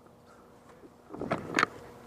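Handling noise from the player's gear and airsoft rifle: quiet at first, then clothing and equipment rustling, with a couple of knocks about a second and a half in as the rifle is brought up against the wooden barricade.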